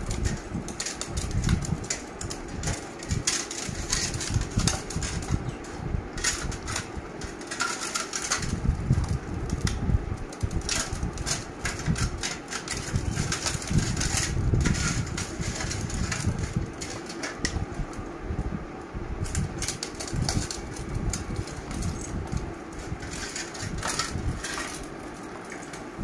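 Rottweiler eating egg and rice from a stainless steel bowl: irregular chewing, smacking and lapping, with the bowl knocking and scraping on the stone floor. A steady hum runs underneath.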